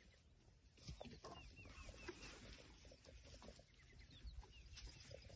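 Faint bird calls: a quick run of short, falling chirps, then a few more a couple of seconds later, over a low rustle of wind and movement.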